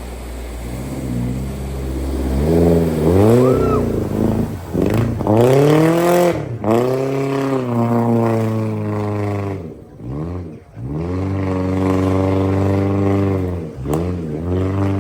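Car engine rising and falling in pitch about five times in a row, as it is accelerated and eased off again.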